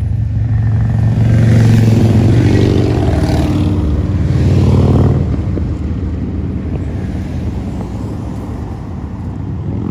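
Car engine and road noise, heard as a steady low hum. It is louder in the first half and eases off after about five seconds.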